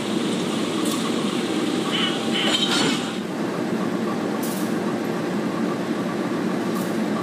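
Diesel locomotive running at a standstill against a passenger coach during shunting, a steady low rumble, with a few short metallic clinks about two to three seconds in.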